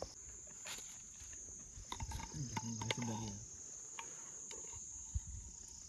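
Steady high-pitched drone of insects, with a few light clicks of a steel ladle against a pot and a foil plate as food is served. A quiet voice is heard briefly about halfway through.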